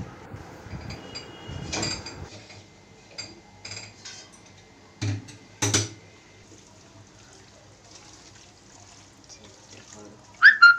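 Aluminium cookware clinking and knocking on a gas stove, with several sharp knocks in the first six seconds. Then a faint steady hiss from the mustard oil heating in the kadai, and a short high-pitched squeal near the end.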